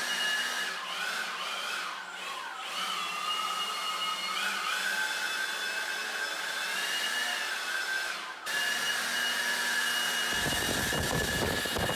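Milwaukee M18 cordless leaf blower, fitted with a 3D-printed wide nozzle, running with a steady high whine whose pitch dips and recovers a few times in the first five seconds. Near the end a low rushing rumble joins as the air blast hits the microphone.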